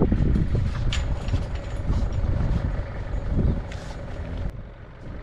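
A metal farm gate being swung shut and fastened, with a few sharp metallic clinks from the gate and its chain over a steady low rumble.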